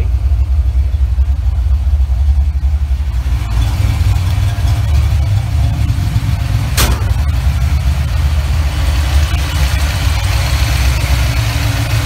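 Ford 302 cu in (5.0 L) small-block V8 idling with a steady low rumble. A single sharp click sounds about seven seconds in.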